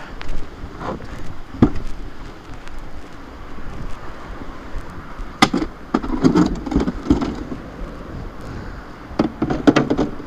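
Irregular knocks and bumps, with a clatter of several near the end, as a paddler and kayak are hauled out of the river, over a steady rushing noise.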